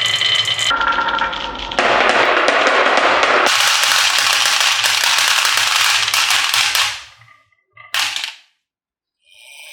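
Marbles rolling and clattering along a wooden HABA marble-run track, a dense stream of rapid clicks. The sound changes abruptly twice in the first few seconds and fades out about seven seconds in, with one short clatter about a second later.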